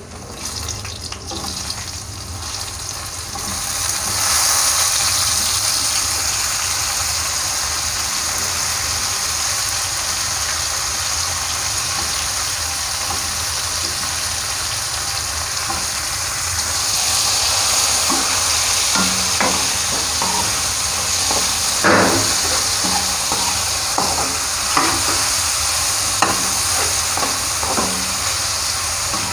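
Sliced mushrooms sizzling in hot oil in a wok with fried shallots and garlic. The sizzle grows louder about four seconds in as the mushrooms go into the oil. In the last third a metal spatula knocks and scrapes against the wok as they are stirred.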